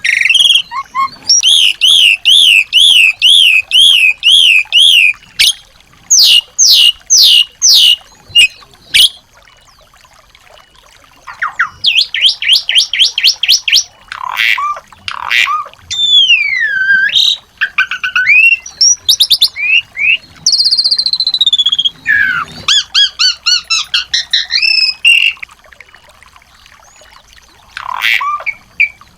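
Small songbirds singing: a fast series of repeated trilled chirps and sliding, up-and-down whistled phrases, broken by a couple of short pauses about ten seconds in and near the end.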